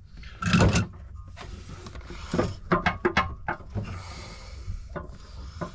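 Scattered clicks and knocks of hand tools and metal engine parts being handled, with a louder knock about half a second in, a quick run of clicks around the middle and a short scrape.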